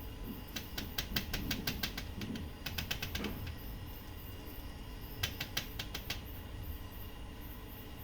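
Two quick runs of light clicks and ticks as parts inside an opened photocopier are handled and worked at during cleaning, over a faint steady background hum.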